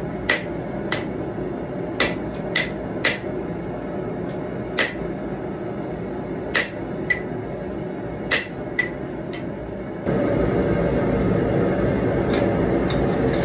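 Hand hammer striking a red-hot knife blade on a steel anvil while the integral guard is forged: about a dozen irregular, ringing blows over a steady background rush. About ten seconds in the blows stop and a louder steady rushing hum takes over.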